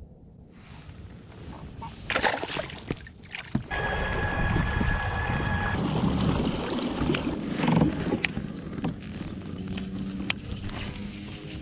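Water splashing and sloshing around a fishing kayak, with sharp knocks of handling on the hull. A steady high tone runs for about two seconds near the middle.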